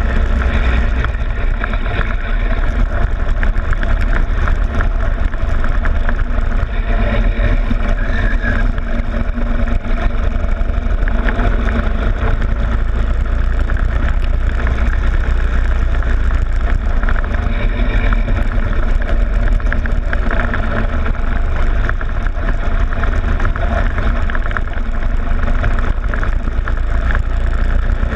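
Go-kart engine running steadily as the kart laps the track, picked up by a camera on the kart's front plastic fairing, with a heavy low rumble.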